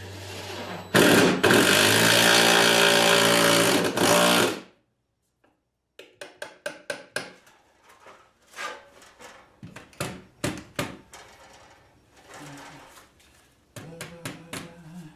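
Cordless driver running steadily for about three and a half seconds as it drives a long screw into a treated 2x6 board, then stopping abruptly. Scattered clicks and knocks follow.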